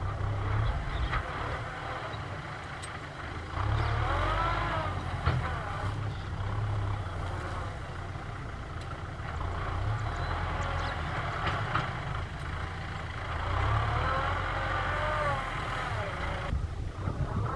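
Tractor engine working hard, its pitch surging up and down as it revs, most strongly about four seconds in and again near the end.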